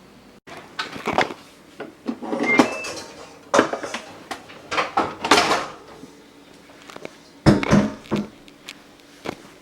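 Kitchen clatter: dishes, containers and utensils knocked and set down in irregular clusters, with a brief high squeak or ping about two seconds in.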